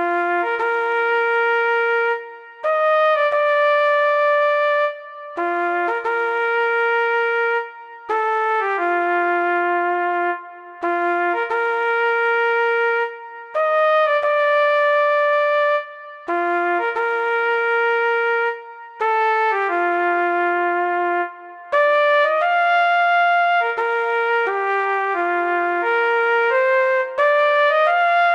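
Emergency alert alarm tune in a brass-like tone, played as loud held notes in phrases of about two seconds with short breaks between them; the phrase repeats, and the notes change more quickly near the end.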